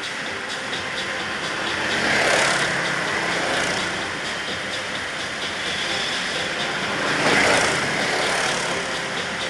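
Ice karts running on an indoor ice rink, with one kart passing close by about two seconds in and another about seven and a half seconds in, each swelling and fading away.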